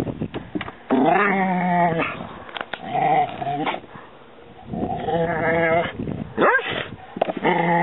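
A dog whining in several drawn-out, wavering bouts, with a sharp rising yelp near the end.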